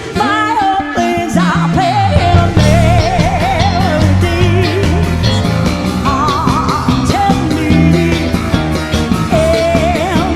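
Jazz-fusion band music with a female lead vocal sung with wide vibrato over drums, keyboards and a busy electric bass line.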